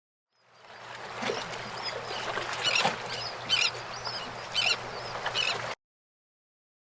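Outdoor ambience: a steady rush with short, high bird calls repeating several times. It fades in after a moment and cuts off suddenly near the end.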